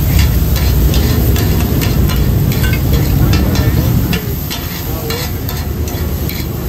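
A metal spatula scrapes and taps quickly on a wide iron pan as oysters are stirred and fried in sizzling oil. A low rumble underneath eases off about four seconds in.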